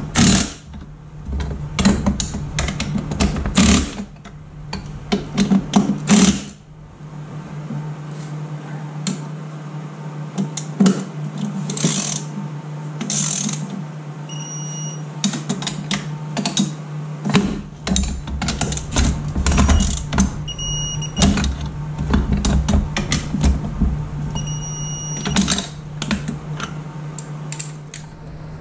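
Cordless impact driver rattling bolts into a Sea-Doo jet pump's steering nozzle in several short bursts during the first six seconds, followed by scattered metal clinks and taps of hand tools and parts as the reverse gate is fitted, over a steady low hum.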